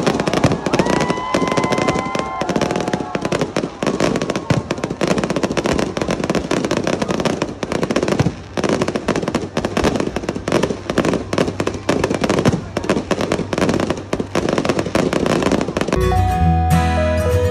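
Fireworks crackling and popping densely, with music underneath. Near the end it cuts to a clean acoustic guitar music track.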